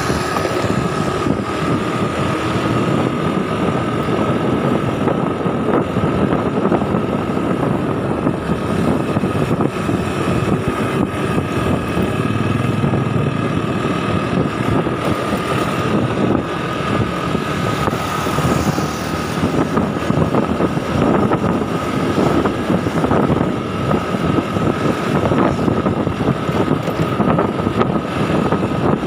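Motorbike on the move: a steady rush of wind and road noise over the engine, with a steady high whine.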